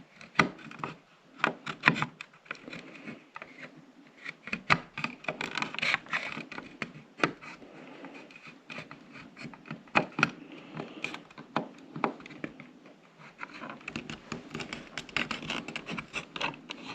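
Irregular clicks, knocks and scraping from hands handling and fitting a battery-operated wireless light switch, with several sharper knocks about two, five, six, ten and twelve seconds in.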